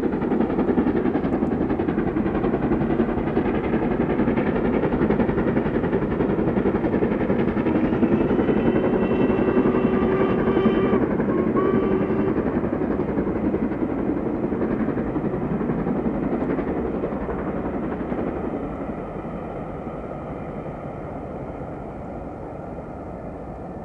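LMS Princess Coronation Class Pacific steam locomotive Duchess of Hamilton working a train past, loud and steady, then fading away over the last several seconds as it recedes. A pitched tone sounds briefly midway.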